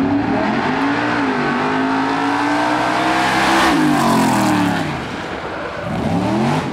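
Engine of a motorized drill-team racing rig at full throttle, its pitch climbing as it accelerates and then dropping as it passes close by about four seconds in. Near the end the engine pitch climbs again briefly.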